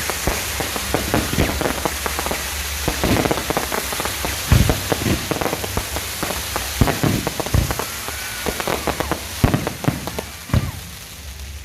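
Fireworks going off: a dense, continuous crackle of many small pops, with louder single bangs standing out now and then.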